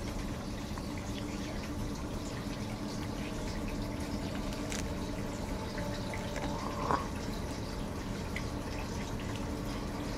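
Diesel locomotives at the head of an approaching CP coal train, heard from a distance: a steady low drone under a constant rushing haze. One short, sharper sound comes about seven seconds in.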